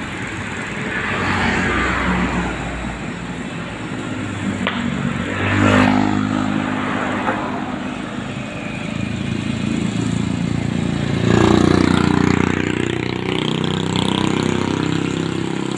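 Road traffic: vehicles passing on a city street, engine noise swelling and fading as each goes by, loudest about eleven seconds in.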